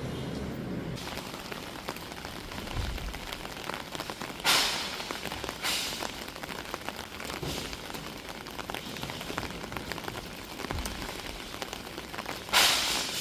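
Rain falling, an even patter of drops, with brief louder surges about four and a half seconds in, just under six seconds in, and near the end.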